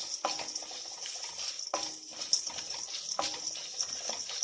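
A spatula stirring dry-roasting spices in a kadai, with three clinks against the pan about a second and a half apart, each ringing briefly, over a steady rustle.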